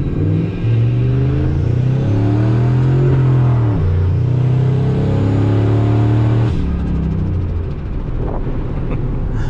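Turbocharged 5.4-litre V8 of a 2003 Ford F-150 accelerating, heard from inside the cab: the engine pitch climbs, drops at an automatic-transmission upshift about four seconds in, and climbs again. About six and a half seconds in the engine note falls away to a lower, rougher drone.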